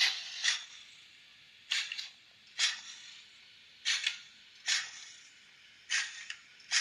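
Sound decoder of a Minitrix N-scale P8 steam locomotive model giving short hissing steam-exhaust chuffs from its small speaker. The chuffs come about two a second at first, then slow to roughly one a second, as at a slow running speed.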